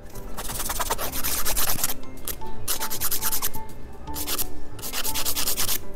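Hand nail file rasping across a natural fingernail in runs of quick back-and-forth strokes, shaping the thumbnail, with short pauses about two and four seconds in.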